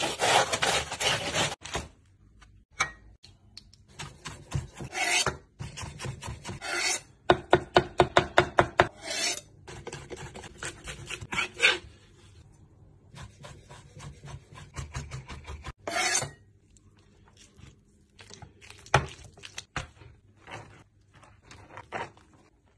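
A knife sawing through a crusty baguette with loud rasping strokes. About a third of the way in comes a quick run of knocks, about six a second, as the knife chops garlic on a wooden cutting board. Later there are softer scrapes and taps as sauce is spread inside the bread.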